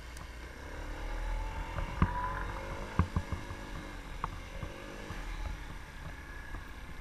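Motorcycle engine pulling away, its pitch rising over the first couple of seconds, under a low steady rumble of wind on the helmet-camera mic, with a few sharp clicks.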